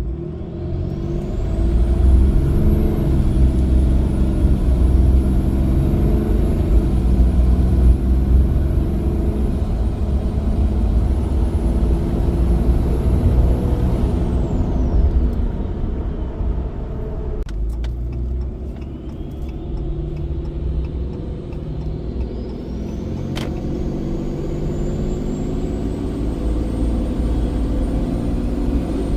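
6.7 Cummins diesel running with its Hooligan billet VGT turbocharger whistling over the engine's low drone. The whistle climbs steeply in the first couple of seconds and holds high, falls away from about fourteen seconds in, then climbs again after about eighteen seconds.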